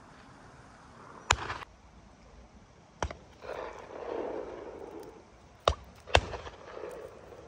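Shotgun shots from the guns on a driven game shoot: four sharp reports, the first trailing a short echo. One comes about a second in, one about three seconds in, and two come half a second apart near the end.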